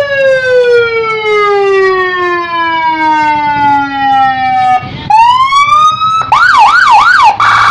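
Custom electronic patwal (police-escort) siren for a motorcycle, switched through several tones: a long falling wail that drops over about five seconds, a short rising sweep, then a quick warble of about three up-and-down cycles, and near the end a faster trill.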